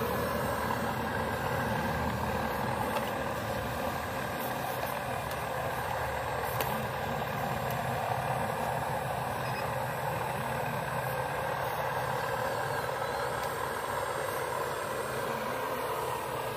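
Radio-controlled scale excavator, modelled on a Cat 336D, running steadily while it works its boom and bucket: an even mechanical hum that holds one level.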